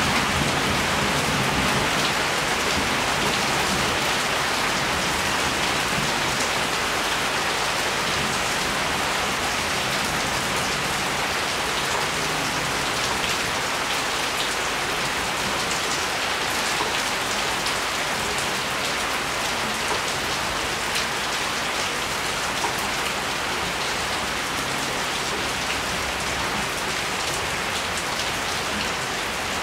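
Steady rain falling, an even, dense hiss of drops with scattered sharper drop hits.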